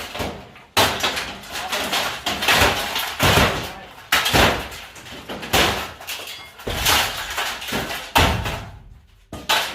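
Claw hammer striking a broken countertop oven's metal casing, about a dozen heavy blows at uneven intervals.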